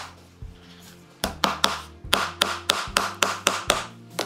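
Claw hammer tapping nails into old wooden tailgate boards. After a pause of about a second comes a short run of blows, then a steady run of quick, light strikes at about four or five a second.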